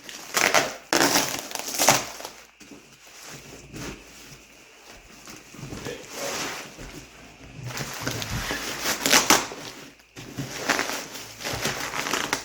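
Cardboard shipping box being torn and wrenched open by hand, with irregular bursts of tearing, crackling and scraping.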